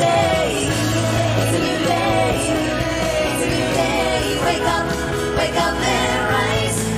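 Pop song: women singing a melody over a band backing with a steady bass line.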